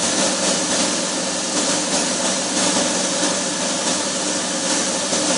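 Boat engine idling: a steady hum with a few constant low tones under a wash of noise.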